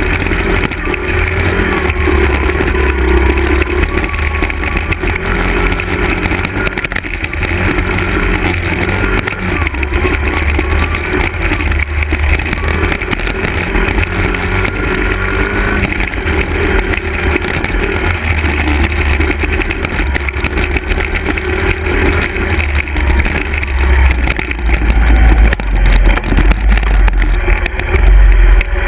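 Honda 50cc single-cylinder four-stroke dirt bike engines (an XR50R and a CRF50) being ridden, the engine pitch rising and falling with the throttle. Heavy wind buffeting on the microphone underneath grows louder and choppier near the end.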